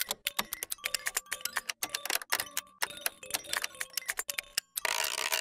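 Rapid ticking sound effect, about ten sharp clicks a second, with a short burst of hiss near the end.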